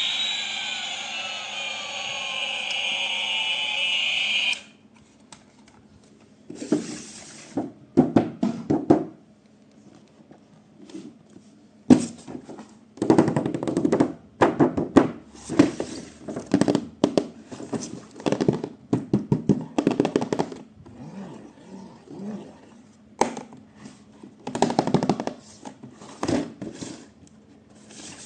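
An electronic toy sound effect with gliding tones, cutting off suddenly about four seconds in, followed by irregular clicks, knocks and rustling of plastic toys and packaging being handled.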